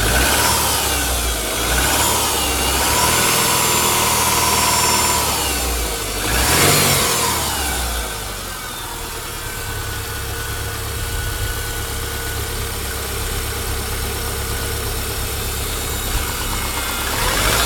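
Cold car engine idling, with short throttle blips: one at the start, one about two seconds in, a bigger rev around six to seven seconds, and another near the end. Whatever knocking noise it makes is one the owner asks might be piston slap on a cold engine.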